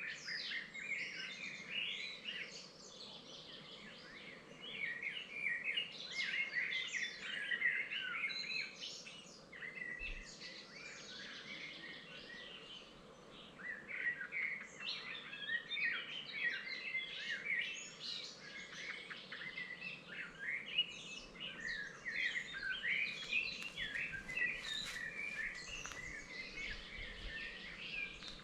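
Several songbirds singing at once, a dense chorus of chirps and trills. The singing thins out for a while in the first half, then builds again.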